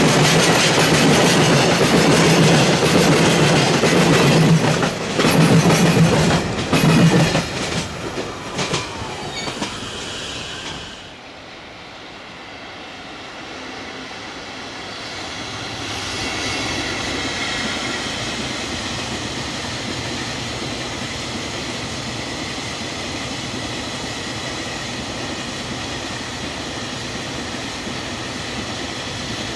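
Freight train tank wagons rolling past close by: a loud rumble with rhythmic wheel clatter over rail joints that cuts off abruptly about 11 seconds in. After that a quieter, steady rolling noise of another freight train, hauled by an EF65 electric locomotive, builds from about 16 seconds in and holds.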